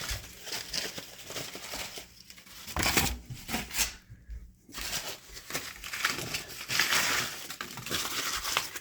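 Cardboard being torn and crumpled by hand and stuffed into a woodstove, in bursts of rustling and crinkling with a short pause partway through. A dull knock about three seconds in.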